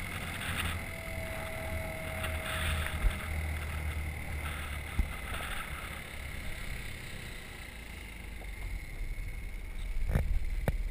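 Moped engine running and wind rushing over the handlebar-mounted microphone while riding, with a few short knocks, two of them close together near the end as it comes to a stop.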